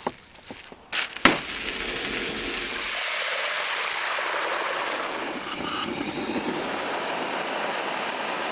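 Soft wet squelches of hands kneading raw minced meat, a sharp knock just over a second in, then a steady loud sizzle of potatoes frying in a wok of hot oil.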